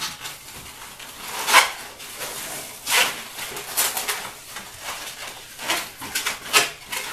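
Long latex modelling balloons squeaking and rubbing against each other and against the hands as they are bent and folded together. Irregular short squeaks, with a few louder ones among them.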